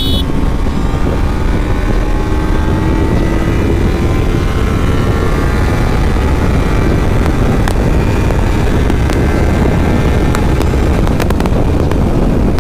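Kawasaki Ninja 300's parallel-twin engine pulling hard at highway speed, its note climbing slowly as the bike accelerates, under heavy wind rush on the microphone.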